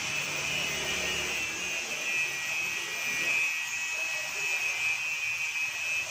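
Electric arc welder joining iron bars, the arc giving a steady hiss and crackle.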